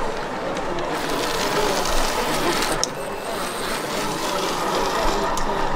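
Model train running on the layout's track: a small motor whirring with rapid clicking of the wheels.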